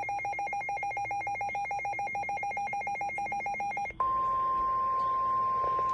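Weather radio alert tones. About four seconds of rapid electronic beeping, several pulses a second, then a steady single-pitched tone of about 1 kHz for the last two seconds: the NOAA Weather Radio warning alarm tone that comes before a warning message.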